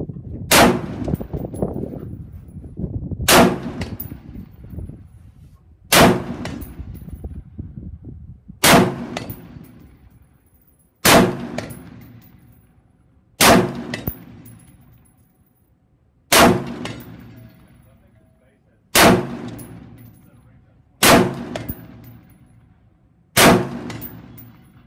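Caracal CAR816 A2 gas-piston rifle firing .223 Remington rounds in slow, deliberate single shots: ten shots about two and a half seconds apart, each followed by a long echoing tail.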